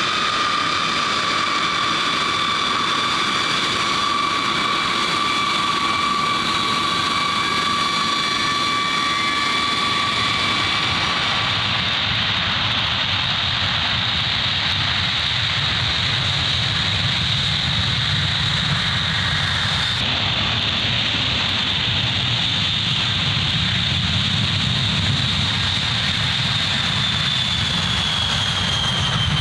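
Jet engines of a B-52H Stratofortress, its eight TF33 turbofans running at high power: a steady loud roar with high whining tones. The sound shifts abruptly twice, about 12 and 20 seconds in, and the low rumble grows stronger as the bomber rolls down the runway.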